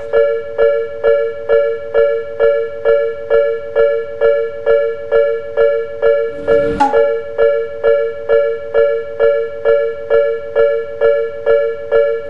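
Level-crossing warning bell ringing in an even, repeating ding, about two and a half strikes a second, each strike a bell-like tone that dies away. A short burst of noise breaks in briefly about six and a half seconds in.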